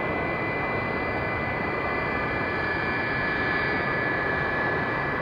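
Jet airliner's engines running, a steady rush with a couple of thin high-pitched whines held at an even pitch.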